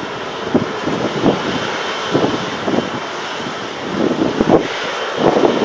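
Jet engines of a KLM Boeing 777-200, GE90 turbofans, running with a steady rushing hiss as the airliner rolls along the runway. Strong wind buffets the microphone in irregular gusts.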